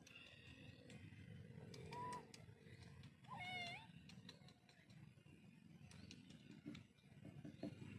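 Young kitten meowing twice: a short, faint meow about two seconds in, then a longer, louder meow that dips and rises in pitch about three and a half seconds in.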